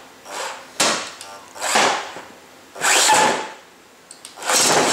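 Electric lifter motor of a featherweight combat robot running in several short bursts, driving the flipper arms up and down through its sprocket and chain.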